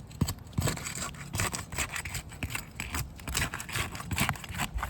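Roof snake being slid under asphalt shingles to break their seal strips: irregular scraping and crackling, with sealant tearing and grit grinding against the shingle surface.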